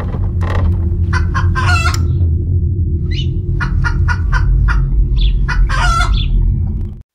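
A string of short, sharp animal-like calls, with two longer calls among them, over a loud, steady low rumble. All of it cuts off suddenly near the end.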